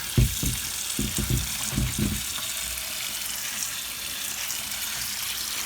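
Tap water running and splashing through the internal grills of a tumble dryer's condenser unit, flushing out fluff and dust: a steady hiss. A few low knocks in the first two seconds as the unit is handled and tipped onto its side.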